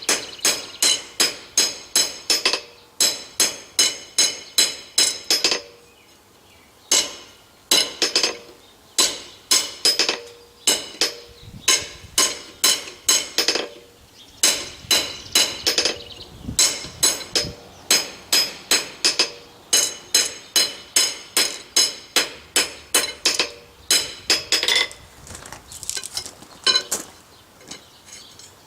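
Hand hammer striking hot steel on an anvil, drawing down a tenon: a steady run of ringing blows, about three a second, with a brief pause about six seconds in. The blows thin out to a few scattered strikes near the end.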